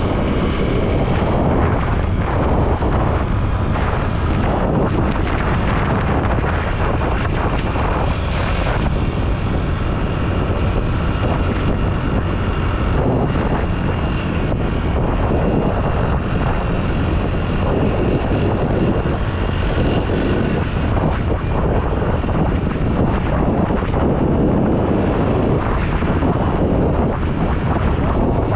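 Steady wind rush over the microphone on a moving motorcycle, with the engine and road noise running underneath.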